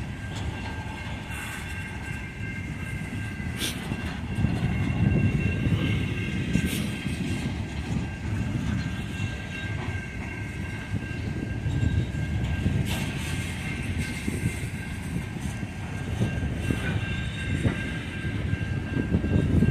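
Loaded coal train's hopper cars rolling past: a steady low wheel rumble that swells and eases, with scattered clanks and clicks from the wheels and couplers. A steady high ringing tone runs through it.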